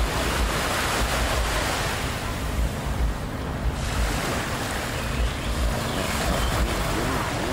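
Wind buffeting the microphone over the rush of sea surf, a gusty low rumble with steady noise above it.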